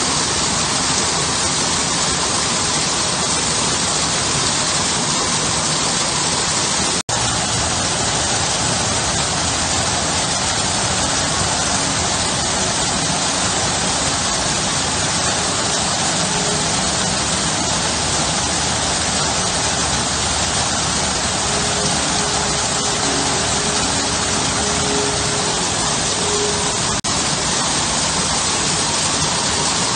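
Water from a small rock garden waterfall pouring and splashing into a pool, a steady even rush. It cuts out for an instant about seven seconds in.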